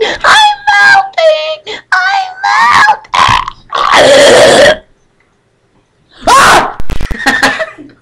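A boy's wordless vocalising: a run of high, warbling wails and squeals, then a long rough yell about four seconds in. After a second of quiet comes another squeal, with a thump near the end.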